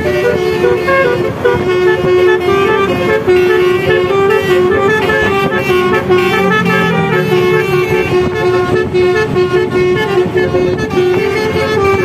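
Telolet horn on a modified Toyota Kijang Innova playing a melody, its steady horn notes stepping from pitch to pitch without a break.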